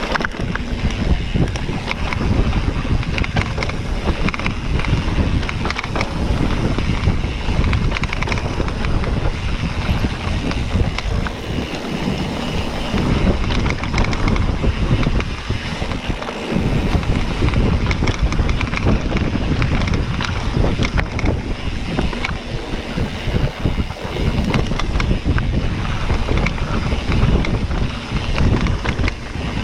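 Wind rushing over the microphone of a camera on a moving mountain bike, with tyre noise and many small knocks from rough dirt trail.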